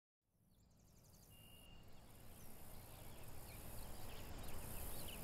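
Quiet outdoor nature ambience fading in from silence: scattered small birds chirping over a low steady rumble, with a brief high thin tone about a second in.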